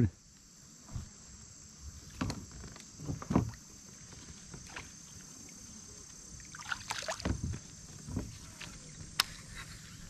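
Scattered knocks and thumps of fishing gear being handled in a kayak: a few soft bumps in the first half, a cluster of thumps later on, and a sharp click near the end, over a faint steady high insect drone.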